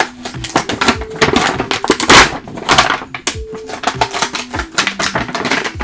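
Cardboard and plastic doll packaging being pulled and torn open by hand: a run of crackling rips and crinkles, loudest about two seconds in. A simple background tune plays underneath.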